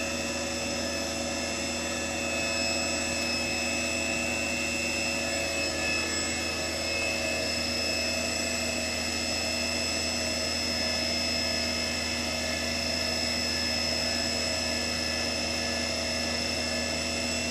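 Small CNC milling machine's spindle running steadily at about 3000 RPM with an 18 mm carbide end mill, an even hum and whine with several held tones. The program's first passes are cutting air, the tool not yet touching the part.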